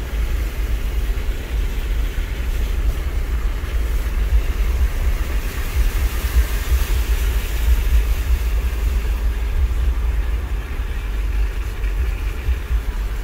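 Vehicle driving slowly along a flooded dirt track, heard from inside the cabin: a steady low rumble of engine and tyres, with a hiss of tyres through standing water that swells about halfway through.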